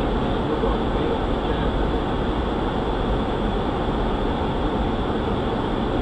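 Steady flight-deck noise of an Airbus A300-600 in descent: an even, unbroken rush of air and machinery hum that holds level throughout.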